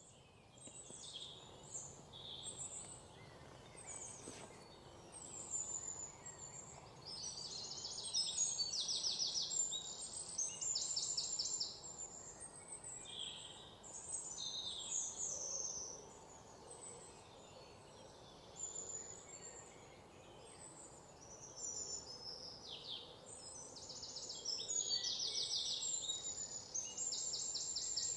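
Small birds chirping and calling, with bursts of fast, high trills, loudest a few seconds in and again near the end, over a faint steady outdoor background.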